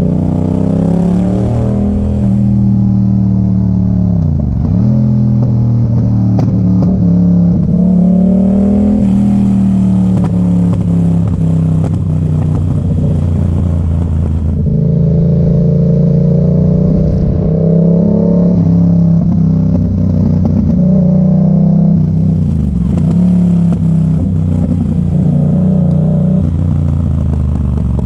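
Yamaha MT-07's 689 cc parallel-twin engine running loud through an Arrow exhaust with the dB killer removed. The revs rise and fall again and again, with brief sharp drops in pitch about four seconds in and again about twenty-one seconds in.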